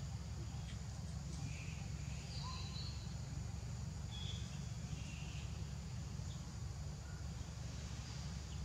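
Outdoor ambience: scattered short, high chirps over a steady low rumble.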